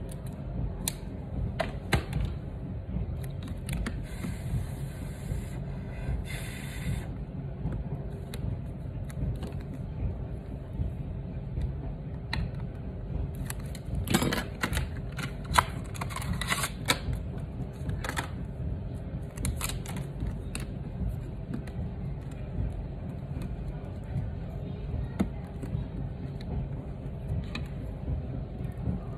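Scattered small clicks, taps and scrapes of hand tools working on an iPhone 7 as its display is pried open and lifted, thickest about halfway through, over a steady low room hum. Two short high hisses come about four and six seconds in.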